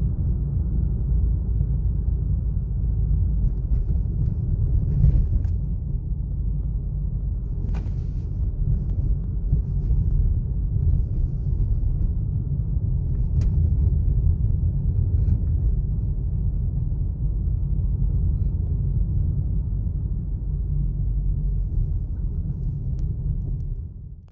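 Steady low rumble of a 2019 Suzuki Swift Sport being driven, heard as road and engine noise, with a few faint clicks; it cuts off suddenly near the end.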